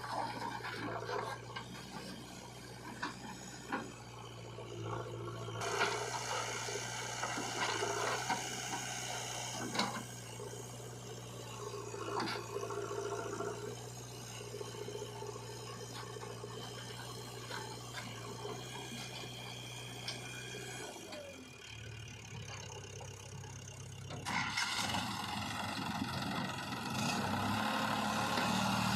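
Diesel engine of a JCB 3DX backhoe loader running steadily while it digs and loads mud, with scattered scrapes and knocks from the bucket and the earth. The engine note changes about three quarters of the way through, and the engine runs louder and harder near the end.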